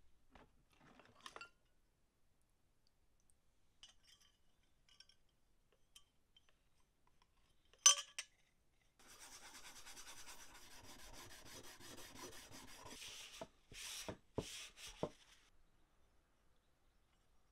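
Rusty metal parts of an old wooden jack plane being scrubbed clean by hand. A sharp metallic clink comes about eight seconds in, then steady rubbing for about four seconds, and three or four separate strokes near the end.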